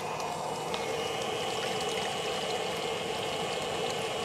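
Small electric water pump (a salvaged Mercedes circulation pump) running steadily, pushing water round the heater's hoses. A thin, steady high whine comes in about a second in.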